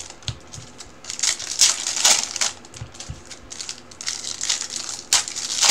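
Bowman Chrome baseball card pack wrappers crinkling and cards rustling and sliding against each other as they are handled, in irregular bursts with a few sharp clicks.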